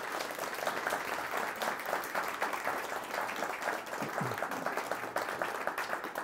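Audience applauding: many people clapping at once at the close of a talk.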